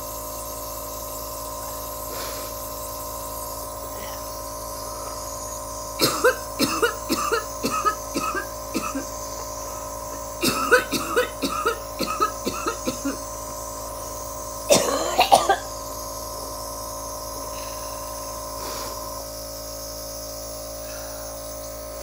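A woman coughing hard in three fits, about a quarter of the way in, around the middle, and a short forceful one a little later, while taking a nebulizer breathing treatment; a steady machine hum from the treatment equipment runs underneath. It is more coughing than usual during a treatment, which she takes for the sign of a chest infection brewing.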